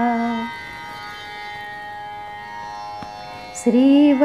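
Woman singing a Carnatic devotional song: a held sung note ends about half a second in, leaving a quieter steady drone accompaniment for about three seconds, and her singing comes back in with sliding pitch near the end.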